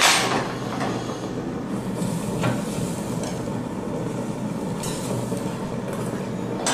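Steady background rumble of a restaurant room with a couple of light clinks of tableware, one at the start and one about two and a half seconds in.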